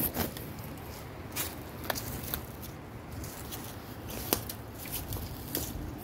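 Scattered light clicks and rustles from a phone being handled and turned around, over a steady background hiss.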